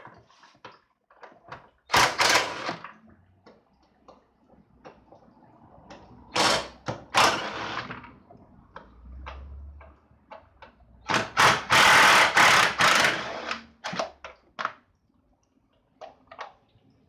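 Hand-work noises from dismantling a car's engine bay: scattered sharp clicks and knocks of tools and parts, with three loud rasping, rushing bursts each lasting about a second or more.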